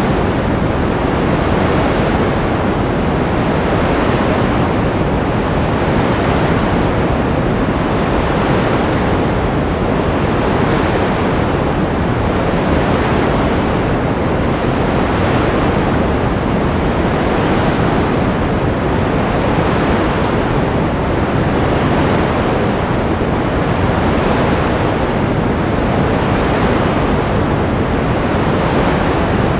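Ocean surf: a continuous, even wash of breaking waves whose hiss swells and eases every couple of seconds.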